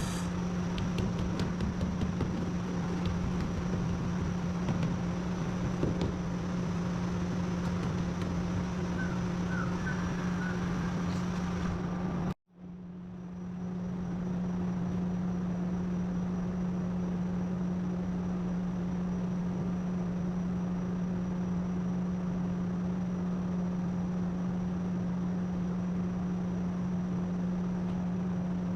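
A steady motor hum with a constant tone, which cuts out suddenly about twelve seconds in and fades back in over a second or so.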